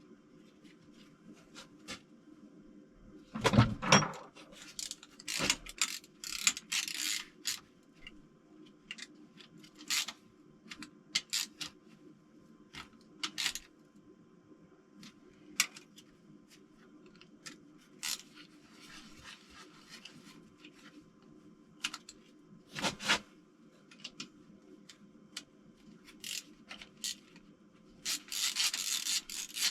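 Hands rummaging through loose engine hardware (nuts, bolts and small parts), making scattered clicks and clinks. There is a louder knock about four seconds in and rubbing, rustling handling near the end.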